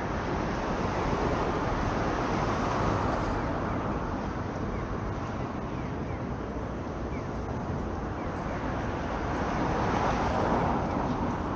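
City street traffic, a steady wash of road noise that swells as vehicles pass about a second in and again about ten seconds in.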